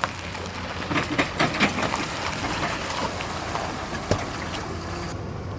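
Boat motor running steadily on the water, with water noise and a few light knocks and clatters in the first couple of seconds.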